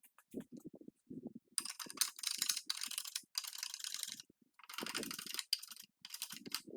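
A hand tool working wood in several long rasping strokes, after a few dull knocks.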